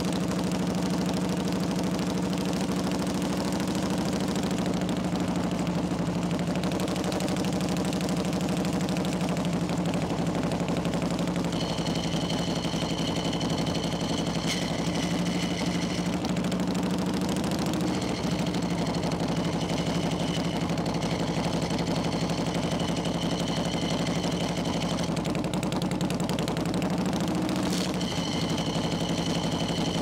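Harley-Davidson Shovelhead air-cooled V-twin running under way on a chopper, a steady, loud, lumpy exhaust beat with pitch dipping and recovering a few times as the throttle changes. A thin high whine comes and goes over it in the second half.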